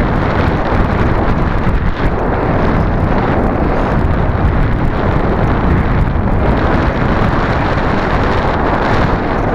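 Loud, steady rush of wind buffeting the microphone of a camera riding on a ParkZone Radian sailplane in flight, gusting without any clear motor tone.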